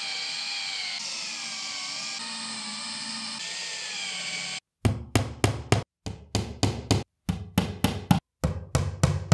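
Makita 18 V cordless drill driving screw-in dowels into the edge of a furniture panel: a steady motor whine that wavers in pitch under load for about four and a half seconds. Then a hammer taps wooden dowels into their holes, about fifteen quick strikes.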